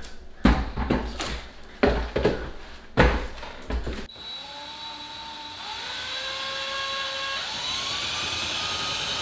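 Several knocks and thumps, then from about four seconds in a cordless DeWalt 20V impact driver running steadily, its motor whine rising in pitch in steps as it drives a bolt.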